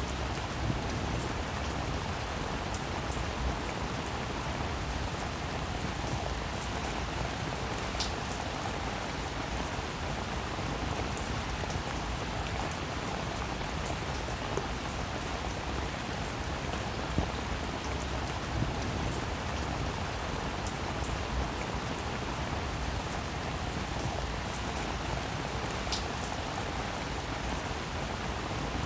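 Steady rain falling on a surface, an even wash of noise with scattered individual drop ticks and a few louder drips.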